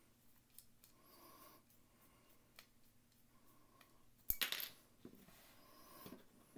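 Faint clicks and rubbing of a small T8 Torx screwdriver backing screws out of a folding knife's handle inlay. About four seconds in there is a single sharp metallic clack with a brief ring, the loudest sound, followed by a few softer knocks of small parts being handled.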